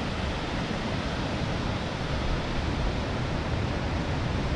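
Steady rushing noise of breaking ocean surf mixed with wind.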